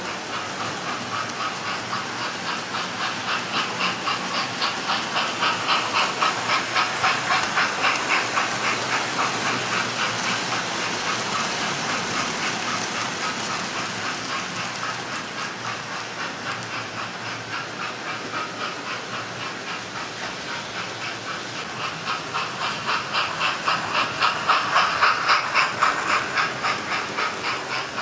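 Model railway trains running on the layout's tracks: a continuous hiss of wheels and motors with rapid, even clicking of wheels over the rail joints. It swells twice as trains pass close by, first about a quarter of the way in and again near the end.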